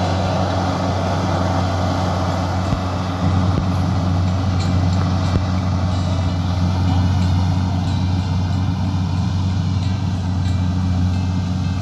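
Rice combine harvester's engine running steadily with a low, even hum while it cuts the field.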